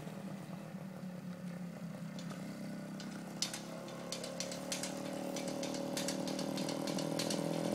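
Small red trail motorcycle's engine running steadily at moderate speed as the bike rides around and approaches, growing louder toward the end. Scattered light clicks are heard in the middle.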